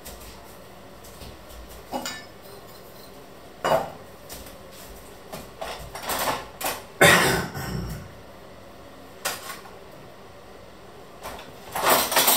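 Kitchenware being handled: a series of separate clinks, clatters and knocks of metal pots and utensils, the loudest about seven seconds in and another cluster near the end.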